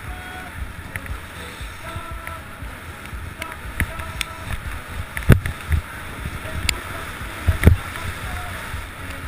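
Skis running through chopped-up powder snow with a steady rush and wind over the microphone, and two sharp knocks, about five seconds and nearly eight seconds in.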